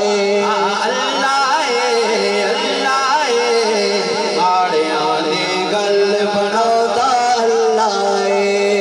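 Devotional singing of a naat: a voice holds and bends long ornamented notes over a steady held tone underneath.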